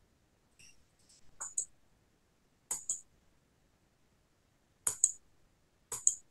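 Sharp clicks in close pairs, four times, with a couple of softer ticks before the first pair.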